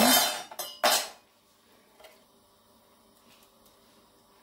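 Metal tongs rattling against a steel pot and an aluminium foil cup as a hot coal is set into the rice, with a sharp clink about a second in. Near silence follows for the last three seconds.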